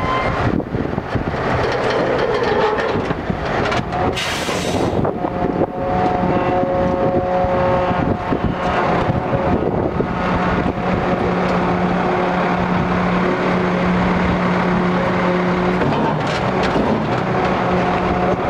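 Semi tractor's diesel engine running steadily as the truck backs slowly up to a lowboy trailer's gooseneck, with a short burst of hiss about four seconds in.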